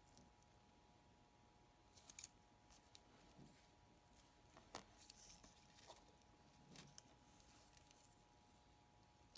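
Faint, scattered small clicks and scrapes of metal watchmaker's tools working on a wristwatch movement, during removal of the dial screws, with a quick cluster of clicks about two seconds in. A faint steady hum sits underneath.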